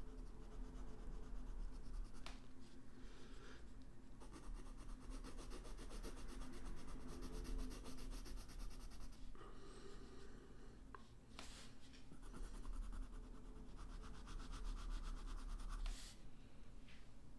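Coloured pencil scratching on paper as a drawing is shaded in with rapid back-and-forth strokes, in several long stretches with short pauses, stopping near the end.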